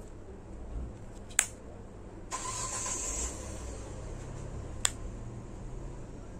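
Plastic earbud charging case handled: a sharp click about a second and a half in as its lid snaps shut, a burst of hiss lasting about a second, then a second, lighter click near five seconds in, over a low steady rumble.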